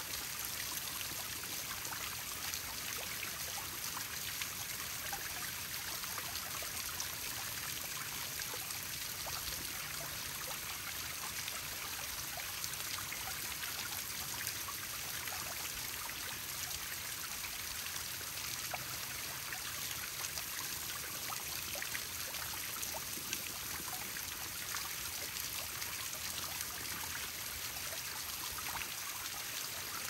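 Small rock waterfall trickling and splashing steadily into a pond, an even wash of falling water with fine drips.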